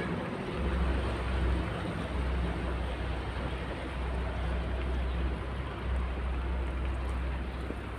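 Water pouring steadily from a jerrycan into a truck's radiator and splashing over the engine, refilling it to flush out the engine block. A steady low rumble runs underneath.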